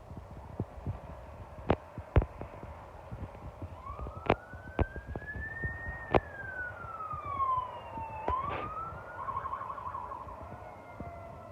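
Emergency vehicle's electronic siren, muffled, coming in about four seconds in: one slow wail that rises and then falls, followed by a short fast warble. Sharp knocks are scattered throughout.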